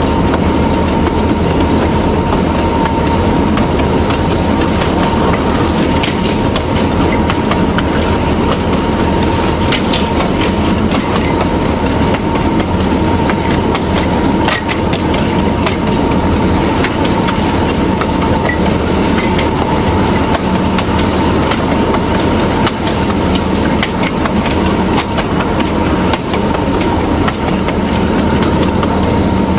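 TU7A narrow-gauge diesel-hydraulic locomotive running along the line: a steady engine drone with a thin steady whine above it, and the wheels clicking irregularly over the rail joints.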